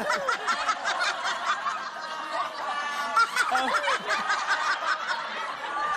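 Several people laughing hard together, many overlapping laughs in quick pulses.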